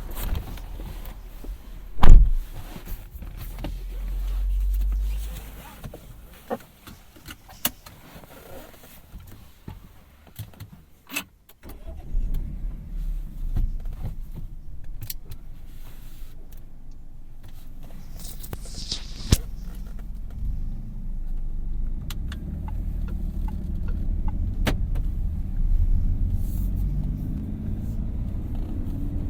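Car sounds heard from inside a 2017 Peugeot 3008 with its 1.2-litre three-cylinder PureTech engine: a heavy thump about two seconds in and scattered clicks, then from about twelve seconds a steady low engine and road rumble.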